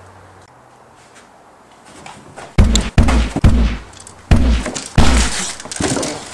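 Dubbed-in gunshot sound effects: about six loud, deep shots in quick, uneven succession, starting about two and a half seconds in.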